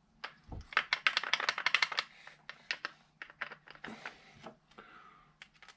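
Hard plastic clicks and small knocks of airsoft pistol parts being handled and fitted, likely the SMG-conversion stock going onto the AAP-01 grip. A quick rattling run of clicks from about one second in to two seconds, then scattered single clicks.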